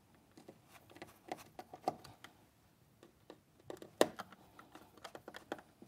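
Hand screwdriver driving the fixing screws of a flush-mounted power supply unit into a cavity wall box: faint scattered clicks and scrapes, the sharpest about four seconds in.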